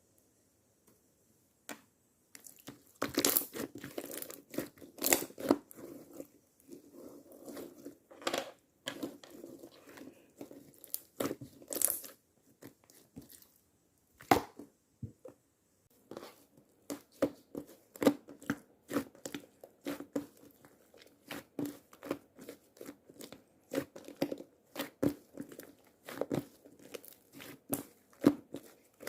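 Slime being squished and poked by hand, making an irregular stream of sharp clicks and crackles. It starts about two seconds in.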